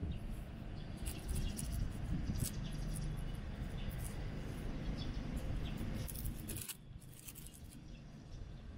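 Outdoor wind rumbling on the microphone, easing suddenly about two-thirds of the way in, with scattered faint high chirps and ticks.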